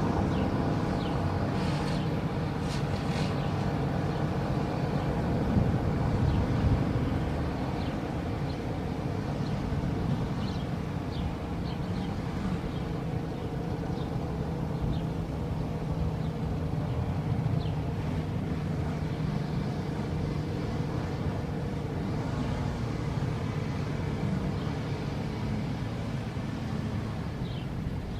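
ACA P-50 outdoor warning siren sounding a steady, unwavering tone: the continuous Alert signal of its test cycle.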